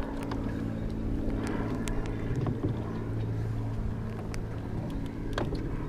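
Bow-mounted electric trolling motor running steadily, a low even hum, with scattered light clicks and taps over it.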